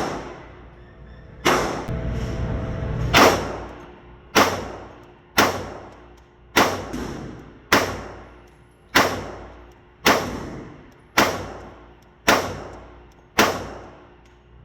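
Gunshots from a firearm at a shooting range: about a dozen single shots, fired steadily at roughly one a second, each with a ringing tail.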